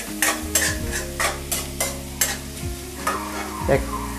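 Spatula scraping and stirring diced vegetables frying in a wok, with a sizzle underneath; quick repeated strokes, about two to three a second.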